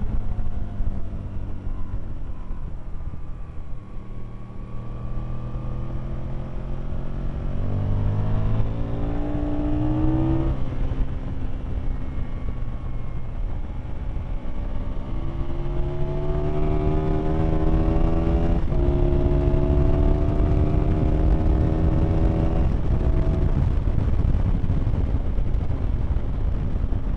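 Aprilia Tuono motorcycle engine heard onboard, pulling up through the gears: the pitch climbs in long sweeps and drops sharply at each upshift, with wind rumble on the microphone underneath.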